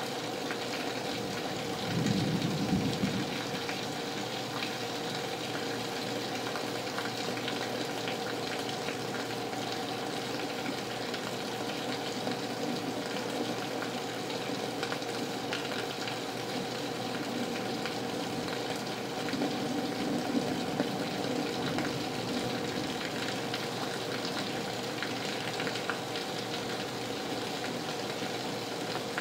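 Heavy rain pouring steadily, with rain running on a window close by. Two brief low rumbles rise above it, about two seconds in and again about twenty seconds in.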